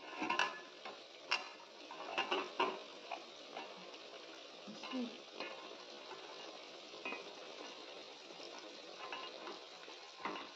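Diced vegetables sizzling in an aluminium pot while a wooden spatula stirs them, scraping and knocking against the pot. There are several sharp knocks in the first three seconds and another near the end.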